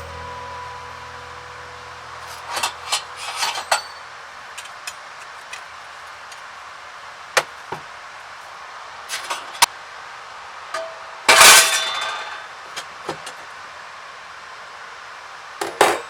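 Scattered clinks and knocks of firewood and a metal fire stand being handled, with a louder clatter about eleven seconds in and a short group of knocks near the end, over a steady faint hiss.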